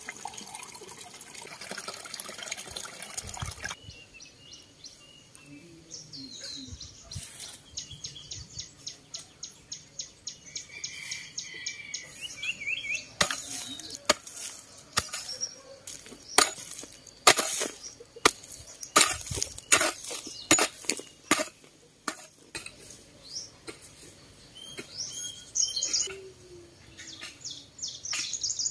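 Water pours in a steady stream from a bamboo pipe into a stone basin, stopping about four seconds in. After that, small birds chirp now and then, with a spell of sharp clicks and knocks in the middle.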